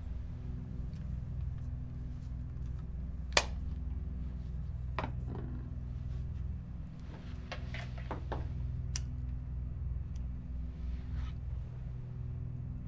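A steady low hum, with a single sharp click about three and a half seconds in and a few softer clicks and rustles later on.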